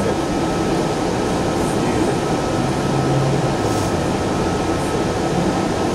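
Sound Transit Link light rail car running, heard from inside the passenger car: a steady noise of the ride with a constant thin whine.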